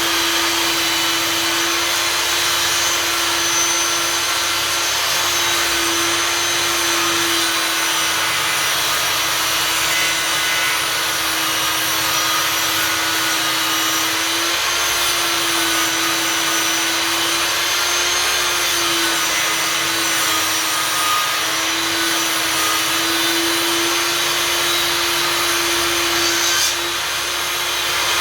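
Einhell table saw running with a steady whine, its blade sawing recycled boards to 5 cm thickness; the pitch sags and recovers slightly as the blade works through the wood, and the sound drops briefly near the end.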